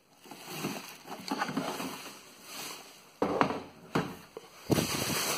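Bubble wrap rustling and crinkling as it is handled, then several sharp knocks and thumps as the plastic-cased monitor is lifted and moved, the loudest near the end.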